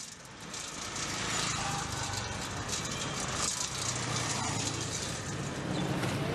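Steady street traffic noise with vehicle engines running, growing louder about a second in.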